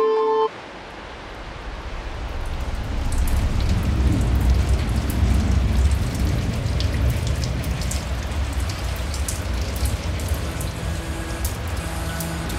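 Loud, steady rush of a fast-flowing mountain stream churning white over rocks, with a deep rumble underneath. Faint music comes back in near the end.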